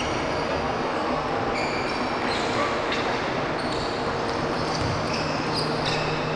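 Basketball game sounds echoing in a gym: a ball bouncing on the hardwood court, short high-pitched sneaker squeaks, and faint players' voices.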